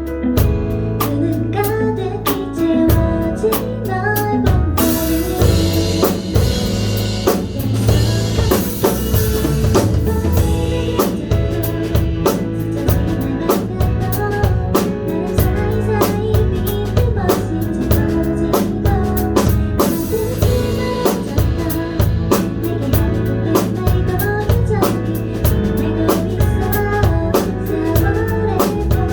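Live band playing a pop ballad, with a drum kit keeping a steady beat of kick, snare and rimshot over bass and guitar. Cymbal crashes come about five seconds in and again near twenty seconds.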